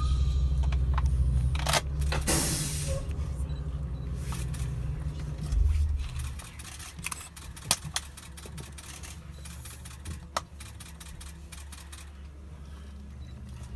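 Shuttle bus engine idling with a low steady hum that drops in level about six seconds in, with scattered sharp clicks of camera shutters.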